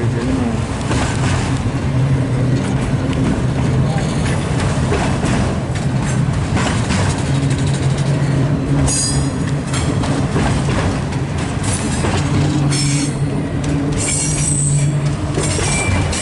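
Freight train of auto-rack cars rolling past close by, a steady loud rumble of wheels on rail. Wheels squeal in short high-pitched bursts several times in the second half.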